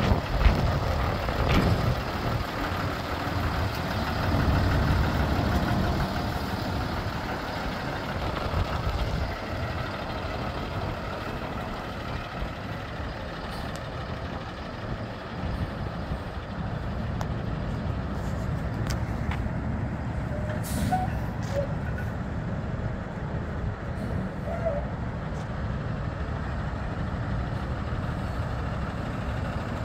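Ford F-750 rollback truck driving off at low speed, its engine running with a steady low rumble; a few short clicks come about two-thirds of the way through.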